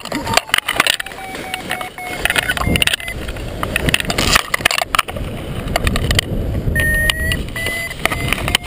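Airflow buffeting a paraglider pilot's harness-mounted camera microphone during a wing collapse, gusting loud and dropping away for moments as the pilot swings, with clicks and rattles from the harness and lines flapping. An electronic beeping tone sounds in short steady stretches over it.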